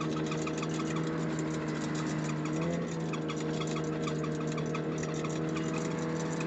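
Snowmobile engine running at a steady pitch, with a fast light ticking over it. The engine pitch lifts briefly a little under three seconds in.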